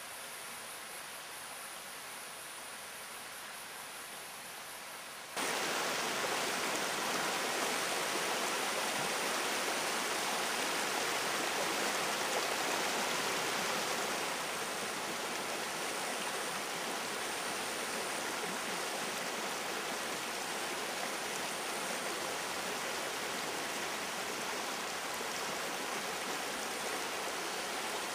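Shallow, stony forest stream running with a steady rush of water. It comes in suddenly about five seconds in, after a quieter steady hiss, and eases a little about halfway through.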